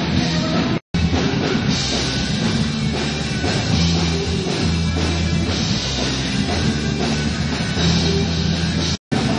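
Rock band playing, drum kit and guitar. The sound cuts out completely for an instant about a second in and again near the end.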